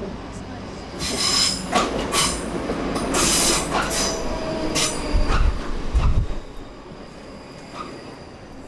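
Train running on the rails with its wheels squealing high against the track over a low rumble. The sound is loud for several seconds and falls away after about six seconds.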